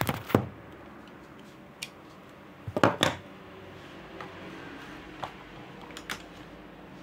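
Handling noise from a phone being moved about: a few sharp clicks and knocks, the loudest cluster about three seconds in, with a couple of light ticks near the end over a faint steady hum.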